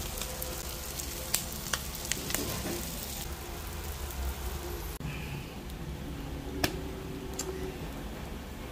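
Bopis sizzling on a hot cast-iron sizzling plate: a steady hiss with a few sharp pops and crackles.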